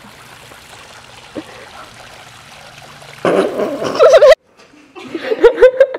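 Faint steady background noise, then about three seconds in a loud, wavering human vocal sound lasting about a second. After a short dead silence, short bursts of laughter begin.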